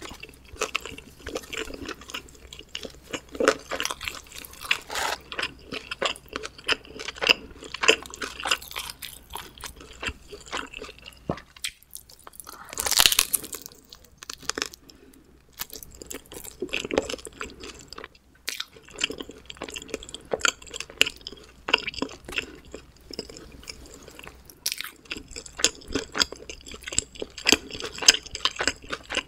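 Close-miked chewing and crunching of homemade thin-crust pizza, with many short crisp clicks and wet mouth sounds, and one louder burst about halfway through.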